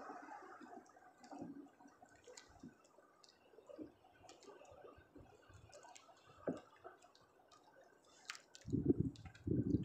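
Faint, scattered small clicks and taps of hands handling a fishing hook, line and bait. A few louder low bumps come near the end.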